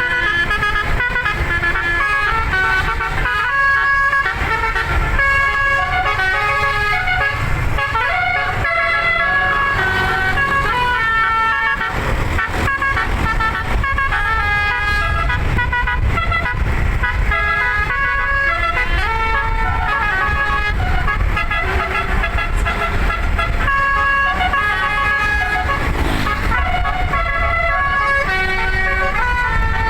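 Telolet basuri musical air horn, an 11-note set of air horns, playing a tune in steady held notes that step from pitch to pitch, over a continuous low rumble.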